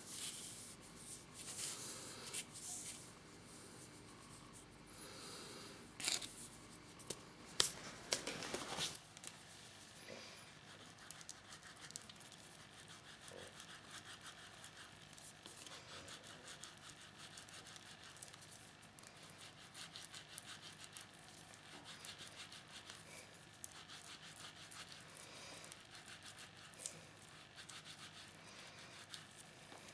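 A wooden egg rubbed by hand with a yellow block, a faint, fast, steady scratchy rub of the block over the wood. In the first nine seconds the egg is handled with abrasive pads, with a couple of sharp knocks.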